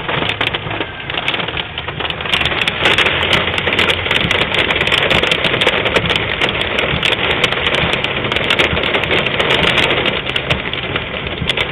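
Hail drumming on a car's body, heard from inside the cabin: a dense, continuous clatter of small impacts.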